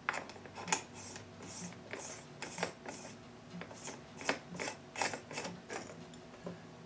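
Irregular metal clicks and rattles as a special socket is fitted to and turned on the main nut of a Schlumpf High Speed Drive bottom-bracket gearbox, about fifteen clicks, stopping shortly before the end.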